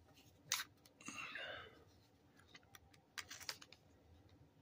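Knife snapping into its Kydex sheath: a sharp click about half a second in and a quick cluster of clicks around three seconds in, with a brief rustle of handling between. The snap is the sheath's retention locking the blade in.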